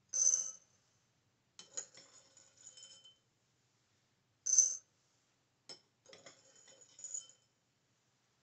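A small metal spoon clinking against a ceramic bowl twice, about four and a half seconds apart. After each clink comes a light rattle and scrape of dried beans as they are scooped up and tipped from one bowl into the other.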